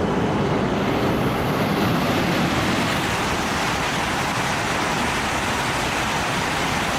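Steady rushing vehicle noise, an even roar with no clear pitch.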